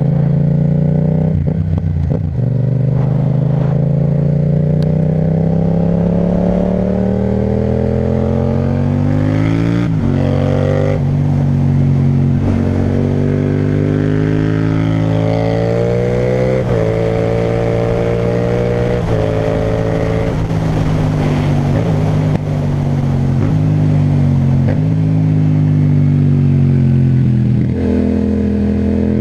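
Yamaha MT-07's parallel-twin engine through an Akrapovic titanium exhaust, pulling hard under acceleration. Its pitch climbs steadily for about the first ten seconds, then drops sharply and climbs again several times as the rider shifts gears, over a steady low rumble of wind and road.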